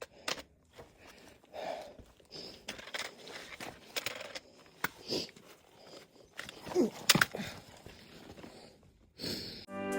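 Footsteps and scattered scrapes, knocks and rustles of a hiker with a backpack clambering through a narrow rock passage, in short irregular bursts with quiet gaps.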